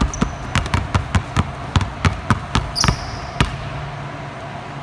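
Two basketballs dribbled at once on a hardwood gym floor, a quick run of bounces that stops about three and a half seconds in.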